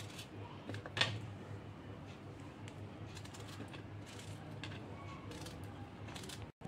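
A knife cutting a peeled raw green mango into chunks over a plate: faint scattered clicks and taps of the blade and the pieces, the loudest about a second in.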